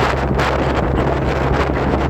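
Strong wind buffeting the microphone: a loud, steady rushing rumble.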